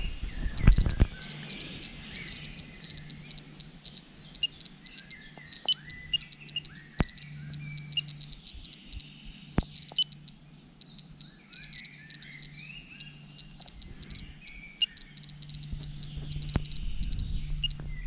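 Radiation detector giving short high-pitched beeps at an irregular rate, one for each count it registers, with birds chirping in the surrounding forest. A few sharp clicks from the instrument's buttons and handling.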